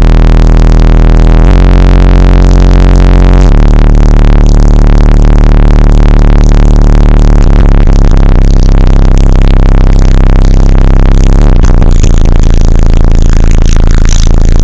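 A rock song played very loud on a car stereo with four FU Audio 750-watt 12-inch subwoofers wired to 1 ohm, with deep bass notes that change every two to four seconds. It is loud enough to hold the recording at full level throughout.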